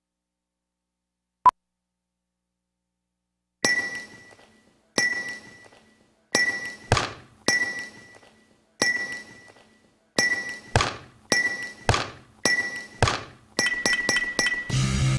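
A single short beep from a video countdown leader. Then a series of sharp metallic hits, each with a brief ringing tone, about a second apart and coming quicker, ending in a fast run of hits as rock music starts near the end.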